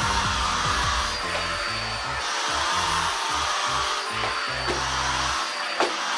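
Instrumental background music, with a single sharp click near the end.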